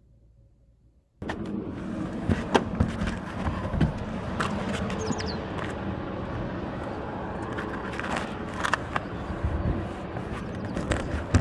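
Strong gusty wind rushing across the microphone, cutting in abruptly about a second in after near silence, with scattered knocks and clicks through it.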